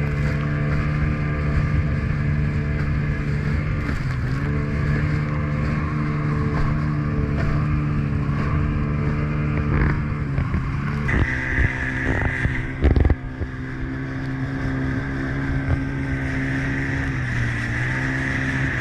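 A small boat's outboard motor running fast and steady underway. Its pitch dips briefly twice as the throttle eases and picks up again. Wind and spray hiss throughout, and a few sharp knocks of the hull hitting waves come about halfway through.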